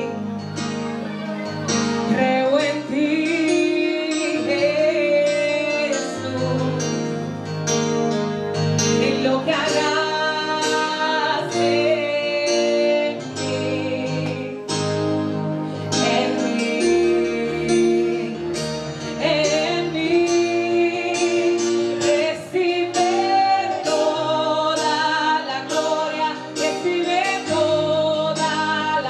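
A woman singing a song into a microphone over an instrumental accompaniment with guitar, with sustained low notes that change every second or two underneath.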